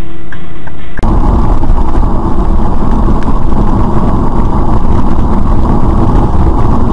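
Steady engine and road noise of a car on the move, beginning abruptly about a second in. Before that comes a different steady sound with regular ticking, about three ticks a second.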